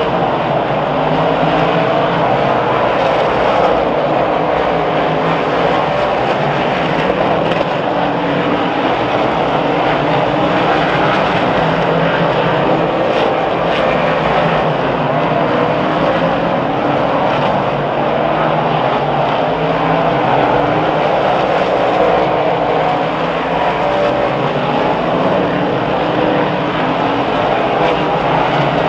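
A pack of 358 dirt modified race cars running on the track: many small-block V8 engines droning together, steady and loud with no break.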